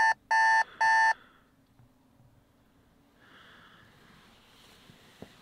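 Electronic alarm clock beeping: three short, evenly spaced beeps, about two a second, that stop about a second in. A quiet room follows, with a faint rustle.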